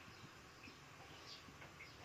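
Near silence: faint room tone with a few faint, short high chirps.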